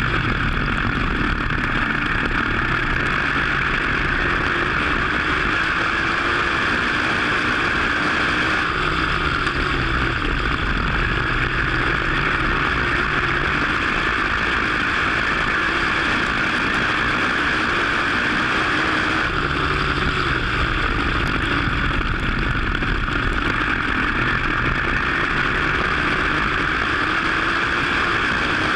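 V8 engine of a WISSOTA dirt modified race car heard from on board while lapping the track, its pitch falling and rising again in a repeating cycle every ten seconds or so as the car slows for the turns and pulls down the straights. A steady hiss sits over the engine throughout.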